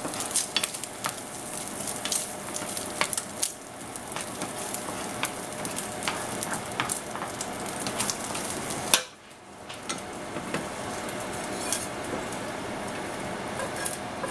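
Turkey bacon sizzling in a copper-coloured nonstick frying pan, with a plastic spatula scraping and tapping the pan as the pieces are stirred. The sizzle dips briefly a little past the middle, then carries on.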